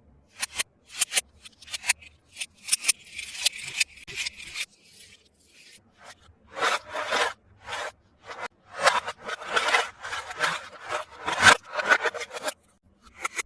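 Toy packaging being handled and unwrapped: a run of irregular rubbing, scraping and rustling strokes with a few sharp clicks, busier in the second half.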